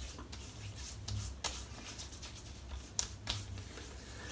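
Hands spreading thick aftershave balm over a freshly shaved face, with a few sharp pats, over a low steady hum.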